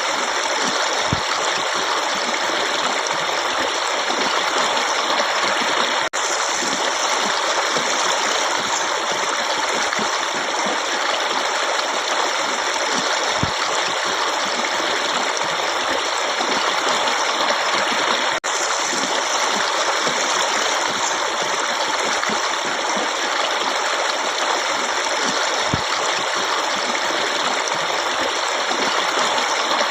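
Forest stream running water: a steady, even rush and babble, with two very brief dropouts about twelve seconds apart.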